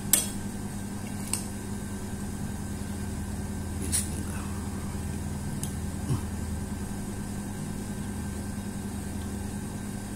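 A metal spoon clinks sharply a few times against a plate while he eats rice, the loudest clink right at the start. A steady low hum runs underneath.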